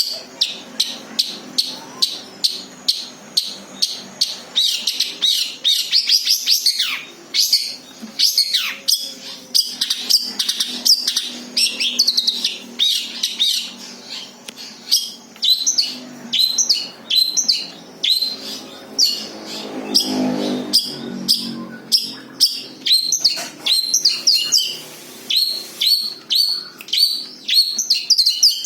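Long-tailed shrike (cendet) singing its own song with no mimicked phrases of other birds: a run of quick, sharp, high notes about twice a second, broken by a few downward-sliding calls.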